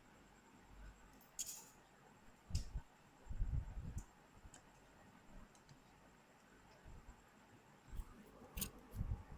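Scattered tool clicks and low knocks from work on a front-load washing machine's screws and counterweights during disassembly, with a cluster of knocks about three and a half seconds in and more near the end.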